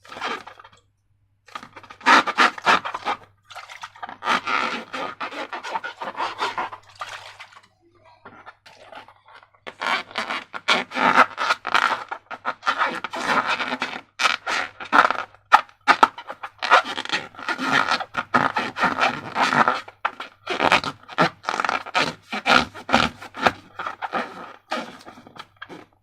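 Slime being squished and worked by hand: a run of short, irregular sticky scraping and crackling bursts, with a quieter pause a third of the way through.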